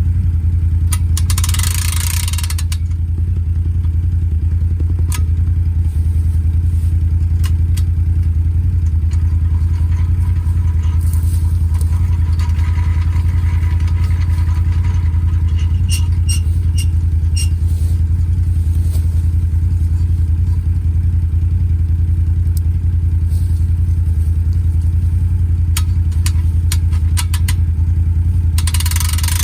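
ATV engine running steadily at idle, with scattered sharp clicks over it.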